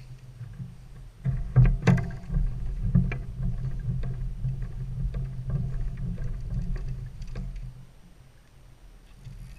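Muffled low rumbling and a few sharp knocks from a fishing kayak, picked up through a GoPro's waterproof housing. The rumble starts about a second in with the loudest knocks, carries on unevenly, and fades out shortly before the end.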